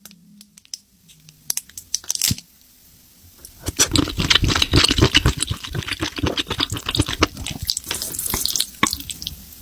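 Close-miked eating of spicy mushrooms: a few scattered wet mouth clicks, then from about three and a half seconds in a dense run of wet chewing and squelching that stops suddenly near the end.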